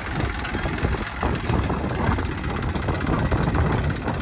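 Small farm tractor's diesel engine running steadily under light load.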